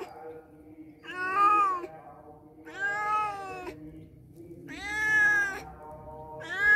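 Domestic cat meowing repeatedly: four drawn-out meows about one and a half to two seconds apart, each rising and then falling in pitch.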